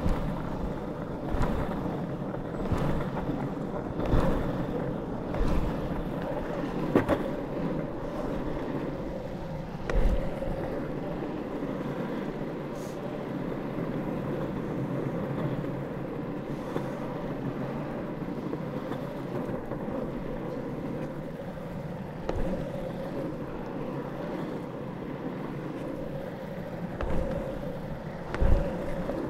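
Longboard wheels rolling on asphalt: a steady rumble, broken now and then by short knocks as the board runs over bumps and the rider's foot pushes off the road.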